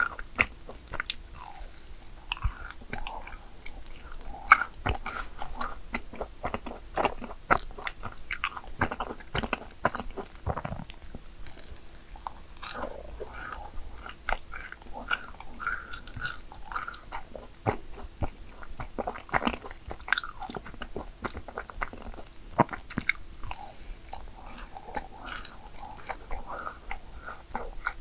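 Close-up biting, crunching and chewing of yakgwa cookies, a steady run of short crisp crackles and mouth sounds.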